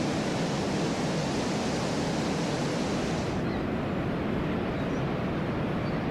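Steady rushing of a waterfall pouring close by, an even roar with no pauses; about halfway through the highest part of the hiss falls away.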